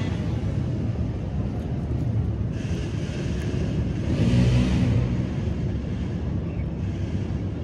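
Wind buffeting an outdoor microphone: a steady low rumble, with two louder gusts of hiss about three and four and a half seconds in.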